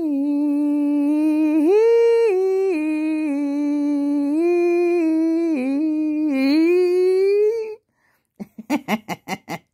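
A woman humming a wordless tune in a high voice, long held notes stepping up and down in pitch, for about eight seconds. Near the end it breaks off into a quick run of short vocal bursts.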